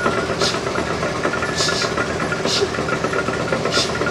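A machine running with a steady drone, and a short hiss about once a second.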